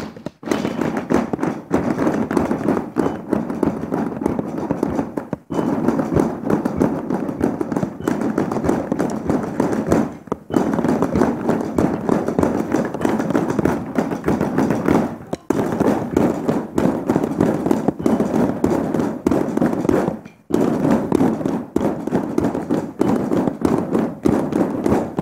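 Drums struck rapidly with drumsticks in a dense, continuous stream of hits, breaking off briefly about every five seconds.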